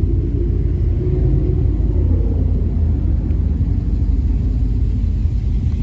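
Steady low rumble of a moving vehicle, with no sudden changes.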